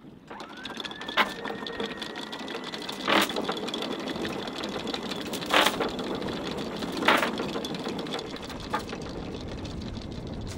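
Electric anchor windlass hauling in the anchor chain. Its motor whine rises as it spins up and then runs steadily, with loud metallic clanks of the chain every couple of seconds as it feeds into the anchor locker.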